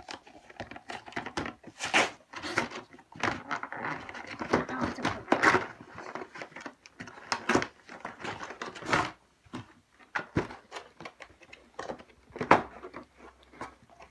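Pokémon card collection box packaging being handled and opened: irregular rustling, scraping and knocks, with one sharper knock near the end.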